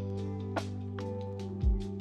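Lo-fi background music with a steady beat: held bass and chord notes under drum hits, with a kick drum thumping near the end.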